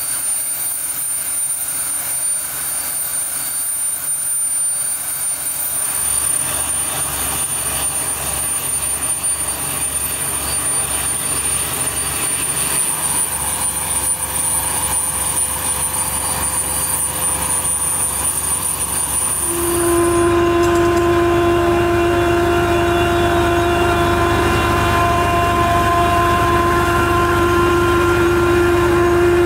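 Dando Terrier drilling rig and track-mounted air compressor running during air drilling: a steady mechanical din with a high hiss. About six seconds in, a low fast pulsing starts, and about twenty seconds in the sound switches abruptly to a louder steady drone with a whine.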